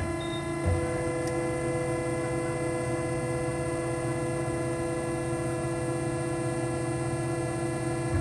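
Hyd-Mech 23A horizontal bandsaw's hydraulic system running with a steady hum. A clunk comes about a second in, followed by a higher steady whine from the hydraulics as the shuttle vise travels. The whine drops out near the end, and another clunk follows.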